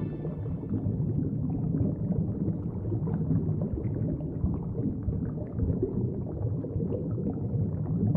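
Water churning and splashing as two dolphins tow a swimmer along by their dorsal fins, heard as a low rumbling wash with scattered small splashes.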